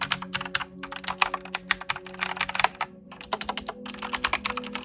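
Fast typing on a Redragon Andromeda mechanical keyboard with Outemu switches, a Cherry MX-style knockoff: a dense, steady stream of key clacks broken by a couple of short pauses.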